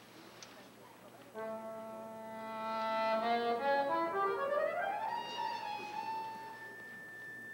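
Accordion starting to play after a quiet second or so: a held chord, then a quick stepwise run rising to a sustained high note.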